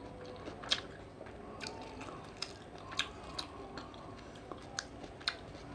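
Close-up eating sounds of someone chewing seafood fried rice, with a series of sharp clicks and smacks about every half second to second.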